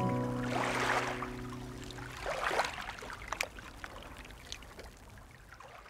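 The last held notes of intro music fading out, with water pouring and splashing in two swells, the second about two and a half seconds in. Faint scattered drips and ticks follow as it all dies away.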